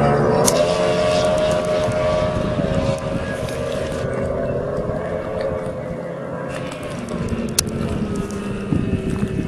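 Outboard-powered speedboat running at high speed past on the water, its engine note dropping in pitch as it goes by, then fading as it runs off into the distance.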